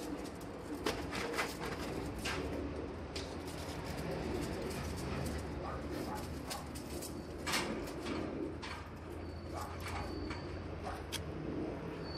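Pigeon cooing low and repeatedly, with scattered sharp clicks and rustles from a dog's leash being handled.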